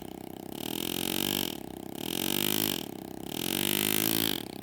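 Pneumatic air graver cutting shade lines into sterling silver. It buzzes in three separate strokes of about a second each, and in each stroke the pitch rises and then falls. A lower steady hum runs in the gaps between strokes.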